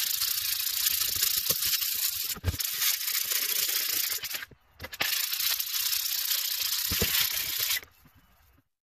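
Sandpaper rubbed by hand back and forth around the bore of a jet pump's metal wear ring: a steady scratchy hiss in three long stretches, with a brief break about two and a half seconds in and another around four and a half seconds, stopping near the end. The sanding smooths the high spots where the swollen wear ring seized the impeller.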